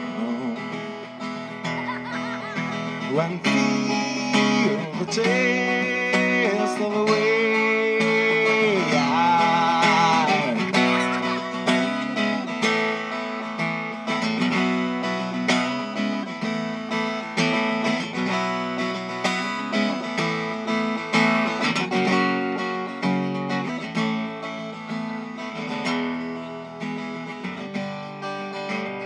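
Live steel-string acoustic guitar strummed in a steady rhythm. During roughly the first third a man's voice sings a wordless melody over it.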